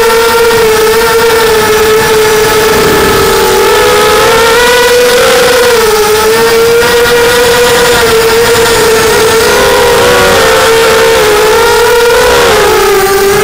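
FPV quadcopter's motors and propellers whining close to the microphone. One steady pitch dips and recovers a couple of times as the throttle changes, over a rush of air noise.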